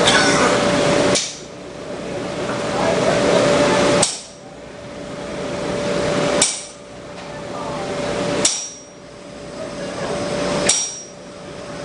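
Hand hammer striking hot steel on an anvil: five single blows about two to three seconds apart, each with a short ring. A steady background hum drops away after each blow and slowly swells back.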